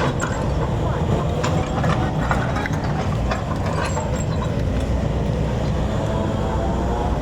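Backhoe's diesel engine running steadily under load, with scattered metallic clanks and knocks during the first half.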